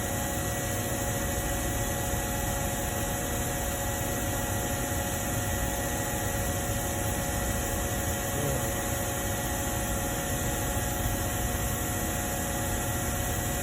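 Steady machine hum and hiss with a few constant tones running through it, unchanging in level, like a fan or an idling motor.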